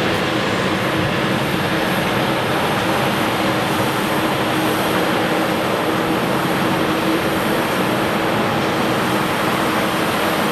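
Jet engine noise from an Embraer 195's GE CF34 turbofans, running steadily as a dense, even rush with a steady hum under it.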